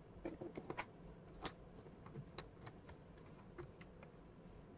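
Wooden jigsaw puzzle pieces clicking and tapping as they are handled and pressed into place on a table: a quick cluster of light clicks in the first second, then a few scattered single clicks.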